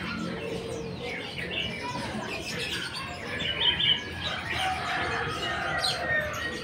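Many small caged birds chirping and tweeting at once: a dense, overlapping chorus of short, high calls.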